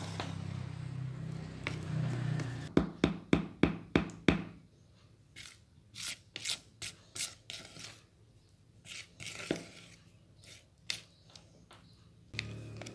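Spatula scraping and knocking against a plastic mixing bowl while stirring thick brownie batter. A quick run of about six sharp knocks comes about three seconds in, followed by softer scattered scrapes and taps. A low steady hum is heard at the start and again near the end.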